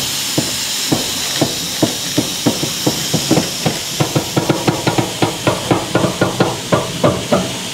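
Steady steam hiss from a two-foot-gauge steam locomotive, with a run of clicks and knocks from the hand-pushed turntable it stands on. The knocks quicken from about two a second to four or more a second as the turntable picks up speed.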